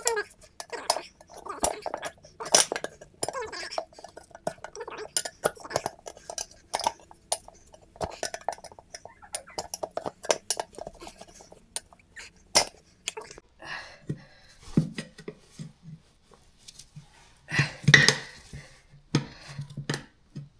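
Metal tools clinking, knocking and scraping against a lawn tractor's front wheel rim while a new tire's second bead is worked onto it, in irregular sharp clicks and knocks with a louder flurry near the end.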